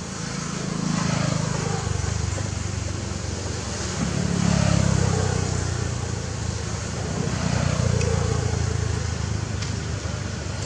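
Motor vehicles passing one after another: a low engine rumble that swells and fades three times, about a second, four and a half seconds and eight seconds in.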